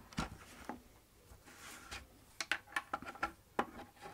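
Light clicks and taps from handling the plastic housing, aluminium rods and sensor leads of a Caldwell G2 chronograph during assembly. A brief soft rustle comes about one and a half seconds in, then a quick run of small clicks.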